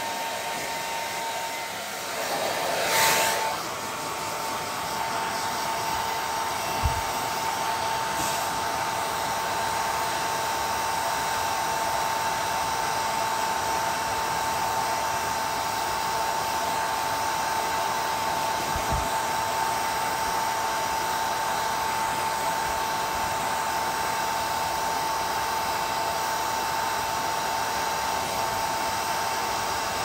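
Hair dryer running steadily with a constant motor whine, swelling louder briefly about three seconds in.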